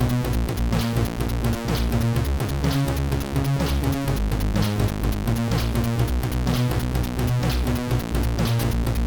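Background electronic music with a steady beat and a repeating bass line.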